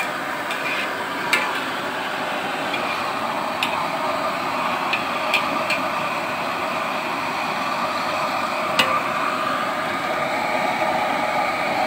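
Potato slices deep-frying in a wok of hot oil, a steady sizzle, with a few sharp clicks of a metal ladle against the wok.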